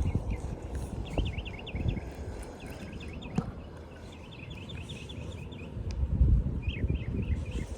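A small bird chirping in quick repeated phrases, over low rumbling wind noise on the microphone that swells about six seconds in. A single sharp click comes about three and a half seconds in.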